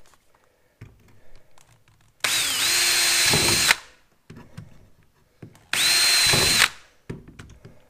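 Cordless drill boring holes through a plastic kayak deck for the rod holder's pop rivets: two short runs at steady full speed, the first about a second and a half long, the second about a second, each with a constant motor whine.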